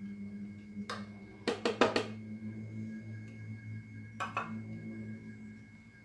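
A plastic bowl tapped against the rim of a plastic blender jar to knock out the last chocolate powder: one tap, then a quick run of four or five sharp taps about a second and a half in, and two more around four seconds. A steady low hum runs underneath.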